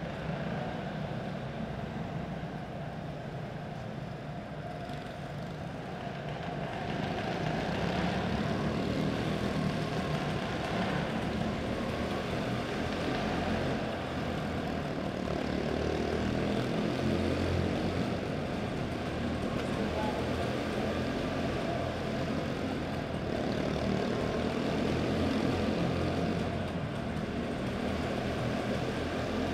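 Quarter midget race car engines, small single-cylinder motors, buzzing as the cars lap an indoor dirt oval, the sound swelling and easing as they pass, with echo from the hall.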